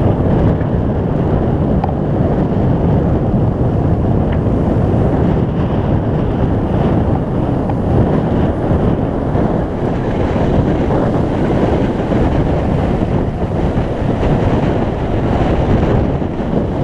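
Steady wind buffeting the microphone over the rush of breaking waves and wake water past a sailing yacht's hull in a rough sea.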